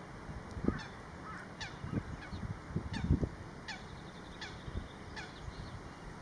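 Mute swan cygnets peeping: a series of high, thin calls that each fall in pitch, about one every 0.7 seconds. Low muffled thumps sound under them, the loudest about a second in and again about three seconds in.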